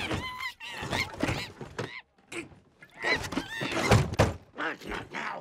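A small monkey chattering and shrieking in quick, pitch-sliding calls, mixed with several thumps inside a wooden desk, the loudest about four seconds in.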